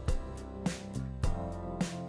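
Background music with a steady beat and plucked guitar-like notes.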